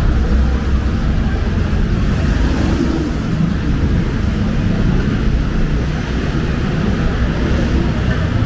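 Steady city street noise: a low traffic rumble mixed with wind buffeting the microphone.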